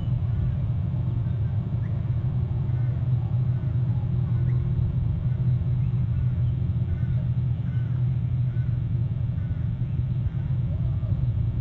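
Steady low rumble of wind on an outdoor webcam microphone, with faint short bird chirps now and then.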